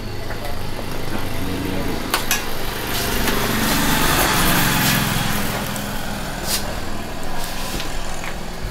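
An engine running steadily with a low hum, with a swell of rushing noise a few seconds in and a few short clicks.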